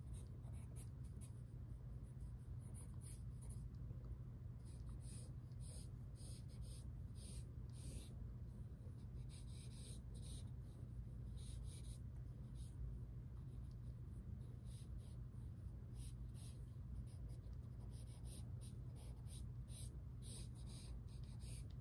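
Graphite pencil scratching across a large sheet of drawing paper in short, irregular strokes, with a brief pause about four seconds in, over a steady low hum.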